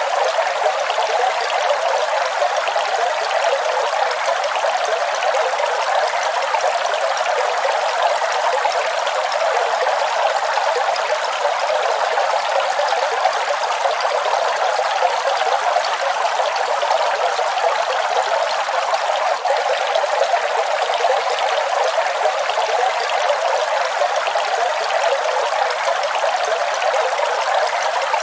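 Waterfall: falling water rushing in a steady, unbroken wash with no deep rumble.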